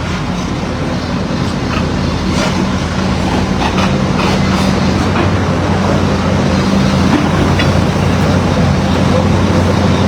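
Heavy diesel engine running steadily with a low drone that grows slightly louder, with a few faint knocks.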